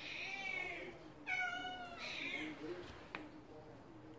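Domestic cat meowing three times in quick succession, short calls within the first two and a half seconds, the middle one the loudest. A single sharp click about three seconds in.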